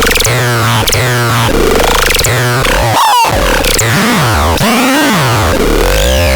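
MOZKO SMRT electronic synthesizer playing a loud, noisy patch: repeated swooping pitch sweeps, mostly falling, over a steady drone tone, with short low buzzing pulses underneath.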